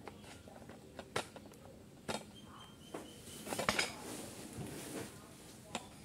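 A few scattered clicks and taps with faint rustling, the loudest cluster about three and a half seconds in: handling noise from the phone that is recording, as it is touched and adjusted.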